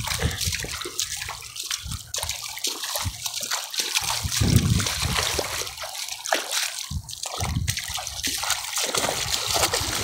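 Shallow water rippling and splashing over stones in a stony riverbed as someone wades barefoot through it, with irregular low splashing thumps from the steps.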